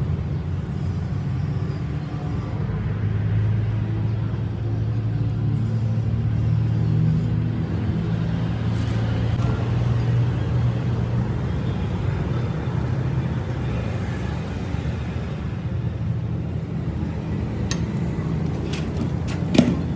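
A steady low mechanical rumble with a hum, a few light clicks near the end and one sharp knock just before the end.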